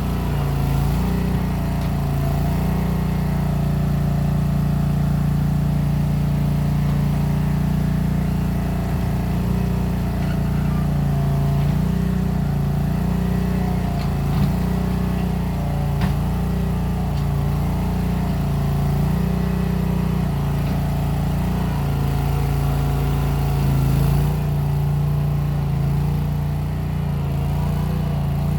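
Case 1816 skid steer's engine running under load, with its exhaust through small round mufflers. The engine speed dips and recovers every few seconds as the machine works, and a couple of faint clicks come through.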